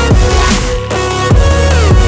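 Background electronic music with a heavy bass line and gliding synth notes.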